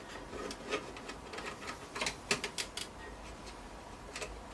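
Scattered light clicks and taps as screws are worked out of a desktop computer's metal chassis with a screwdriver, with a quick cluster of clicks about two seconds in.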